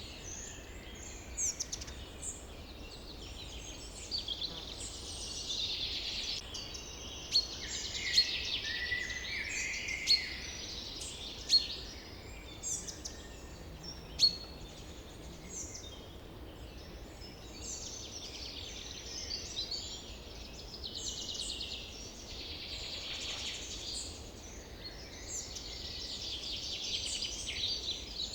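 Forest ambience: many birds chirping and trilling at once over a faint steady low rumble, with a few sharp, loud chirps between about seven and fourteen seconds in.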